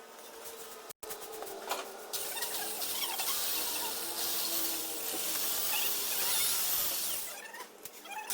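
Engine valve being lapped into its seat in the cylinder head with grinding compound: a gritty rubbing with faint squeaks, loudest in the middle, with a brief break about a second in.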